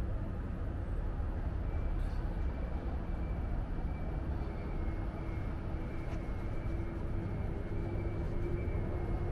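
Steady low rumble of road traffic and idling engines, with a faint steady hum coming in about two seconds in.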